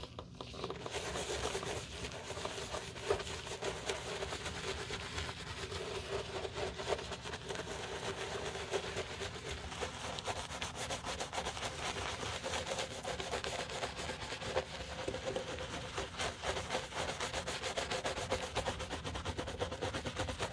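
A soft-bristled brush scrubbing foamy lather over a black leather loafer: a steady wet, scratchy rubbing made of many short quick strokes.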